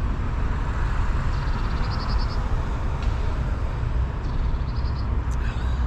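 Steady rumble of road traffic at a busy junction, with two short runs of rapid high-pitched pips over it, about a second in and again near the end.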